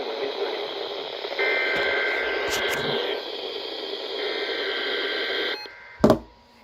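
Weather radio receiver giving a steady hiss of static with faint steady tones between broadcast segments. The hiss cuts off about five and a half seconds in, followed by a single sharp click.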